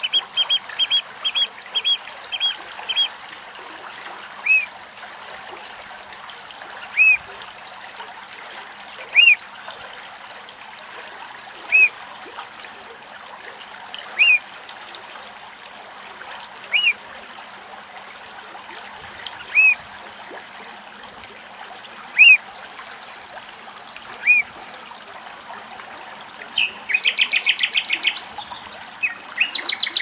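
Eurasian oystercatcher calling: a quick run of short piping notes, then single loud sharp calls about every two and a half seconds, each rising and falling in pitch, and near the end a fast run of piping notes.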